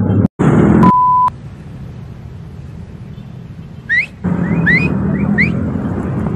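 City street traffic with motorcycle engines running, broken about a second in by a short, steady electronic beep and, around four to five seconds in, by three quick rising chirps.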